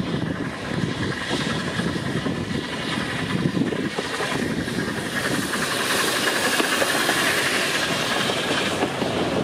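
NGG16 Garratt steam locomotive NG.87 approaching and passing with its train, steam and hiss growing louder as it draws near.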